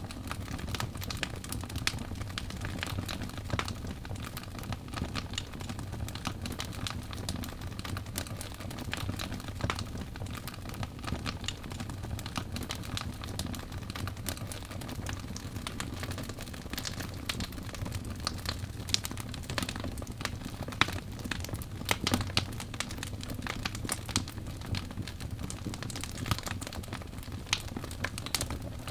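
Wood logs burning in a fireplace: a steady low rumble of flame with dense, irregular crackling and a few sharper pops.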